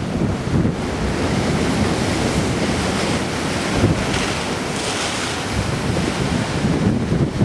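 Wind buffeting the microphone over waves washing against a harbour breakwater, a gusty low rumble with a hissing swell of water about four to five seconds in.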